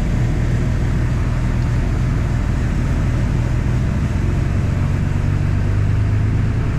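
Tractor engine running steadily under load, driving a grain cart's unloading auger through the PTO as corn is augered into a trailer; a steady low drone that shifts slightly in pitch about two-thirds of the way through.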